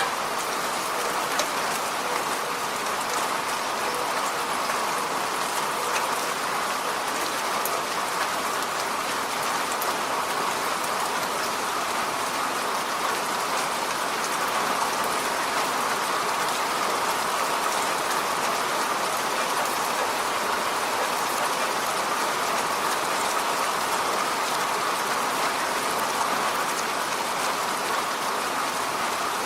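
Steady rain falling on a road surface, an even hiss with scattered drop ticks.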